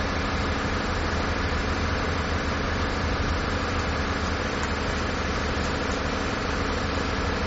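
A steady engine drone, idling evenly at a constant level.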